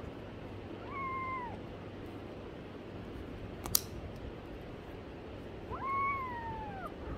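Kitten meowing twice, each mew holding its pitch and then dropping at the end, about a second in and again near the end. A single sharp click comes between the two mews.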